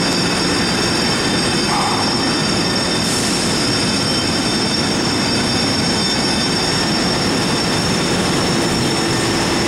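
Light-rail trolley car's steel wheels squealing on the rails as it rolls slowly through the station: a steady high-pitched squeal over a low rumble.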